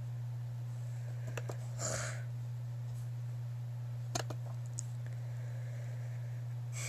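A few sharp computer mouse clicks, a pair about a second and a half in and another pair about four seconds in, over a steady low hum. A short breathy rustle comes about two seconds in.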